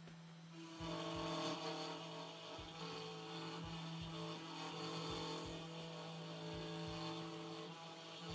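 Genmitsu PROVerXL 4030 V2 desktop CNC router cutting wood: a steady hum under the machine's whine, which changes pitch in steps as the axes move. The whine starts about a second in and stops shortly before the end.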